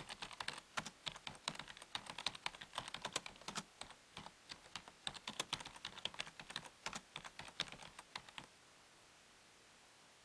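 A rapid, irregular run of light, sharp clicks, several a second, that stops about eight and a half seconds in, leaving a faint steady hiss.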